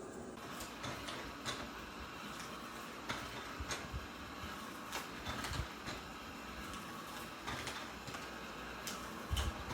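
eufy RoboVac 11S Max robot vacuum running with a steady whir, broken by irregular clicks and knocks, the loudest a thump near the end.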